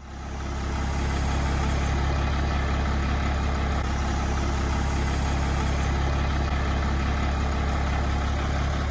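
Utility digger-derrick truck's engine running steadily at idle, a deep hum that fades in over the first second and then holds level.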